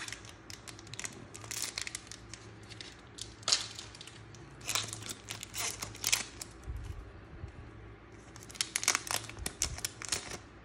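Foil wrapper of a Pokémon card booster pack being crinkled and torn open by hand, in several bursts of crackling.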